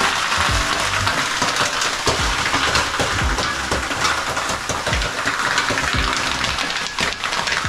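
Water ladled onto the hot stones of a sauna stove, hissing steadily as it flashes into steam (löyly).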